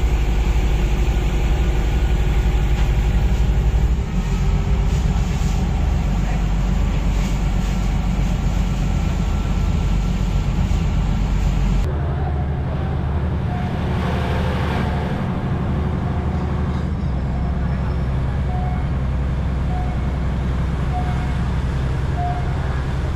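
Diesel railcar engine running steadily and low as the train moves slowly through the market, with people's voices underneath. The sound changes abruptly about halfway through.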